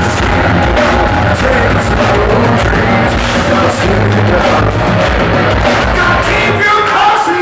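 Rock band playing live: distorted electric guitars, bass guitar and drums, loud and steady.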